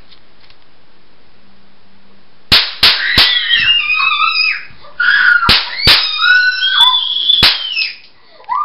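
A string of sharp gunshot bangs, about six in two bursts beginning about two and a half seconds in, with high-pitched screaming between and over them.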